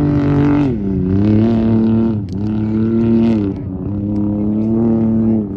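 Off-road race vehicle's engine running at high revs, its note dropping sharply four times and holding steady in between.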